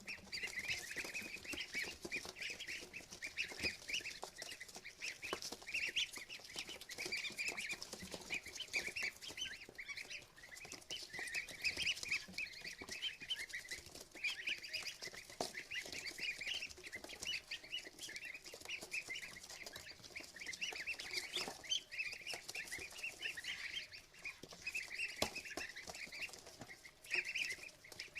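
A box of ducklings peeping continuously, many short high peeps overlapping without pause.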